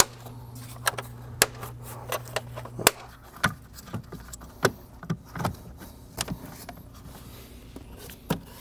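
Plastic air filter housing cover being fitted onto the air box: a run of irregular sharp clicks and knocks as it is seated and fastened.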